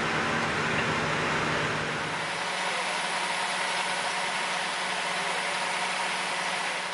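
A bus driving, its engine and road noise rumbling for about the first two seconds, then giving way to a quieter, steady engine hum of an idling vehicle.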